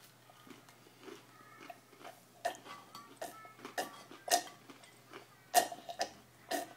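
A toddler licking and slurping vla (Dutch custard) from inside a ceramic bowl held up over the face: irregular wet mouth smacks and clicks, a few every second, the loudest about five and a half seconds in.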